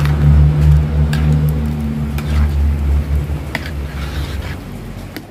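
A steady, loud, low engine-like hum that fades away near the end, with a few light clicks of a metal ladle against an aluminium wok as a vegetable soup is stirred.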